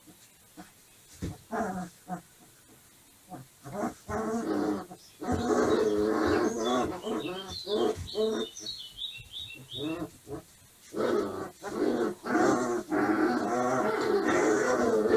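Two Dogo Argentino puppies growling at each other as they play-fight. The growls come in short spurts at first, then run almost without a break from about a third of the way in, with some higher squeaky notes in the middle.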